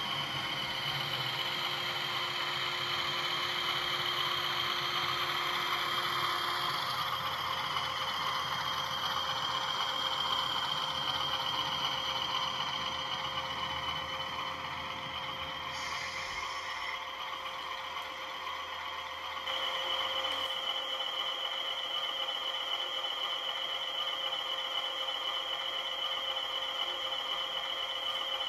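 Model railway diesel locomotive running with a train of tank wagons: a steady high motor whine over the rumble of wheels on the track, louder again after a change about two-thirds through.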